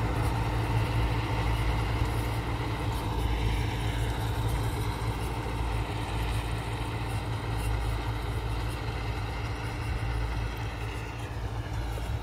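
Tractor engine running steadily under load, driving a PTO-powered rotary super seeder through tilled soil, with a steady drone that eases slightly near the end as the rig moves away.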